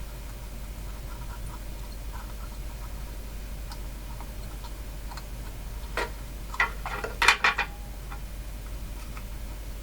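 Light ticks and clicks of small tools and parts being handled on a workbench, with a short run of several sharper clicks and knocks about six to seven and a half seconds in. A steady low hum runs underneath.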